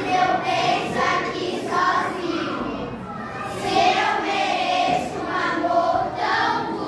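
A group of children singing together in unison, with held, sustained notes.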